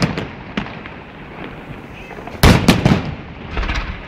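Fireworks bursting. There is a loud bang right at the start and a small pop just after, then a quick cluster of heavy echoing bangs about two and a half seconds in, followed by lighter crackling pops near the end.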